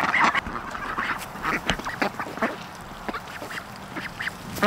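A flock of domestic ducks quacking softly and sporadically, with a few short clicks and rustles among them.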